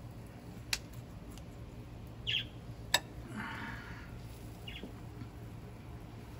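Kitchen scissors and metal tongs cutting up grilled pork belly in a ceramic dish: two sharp metallic clicks, one about a second in and a louder one about halfway through, and a short rasp of cutting just after. A couple of brief high chirps, likely birds, come in between.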